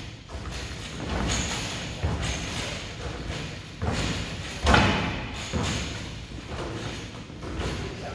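Basketballs thudding about once a second during rapid-fire free throws: balls dropping through the hoop onto a ball-return rack and being caught and handed to the shooter, in an echoing gym.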